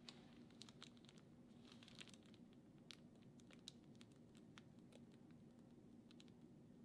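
Faint, scattered crinkles and small clicks of a piping bag being squeezed over a low steady hum.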